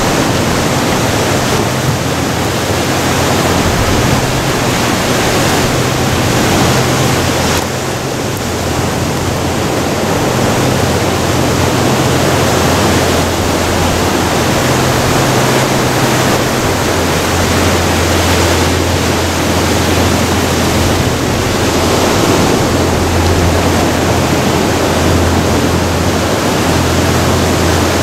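Ocean surf breaking and washing over a rocky shore, a loud, steady rush of noise.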